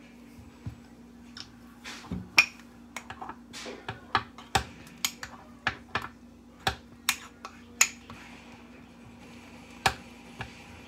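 Metal spoon stirring a homemade ice-cream milkshake, clinking against the cup in irregular sharp clicks that come thickest through the middle of the stretch.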